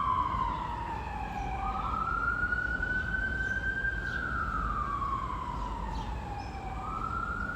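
Emergency vehicle siren wailing: its pitch slides slowly down, then climbs back up, twice, over a steady low city traffic rumble.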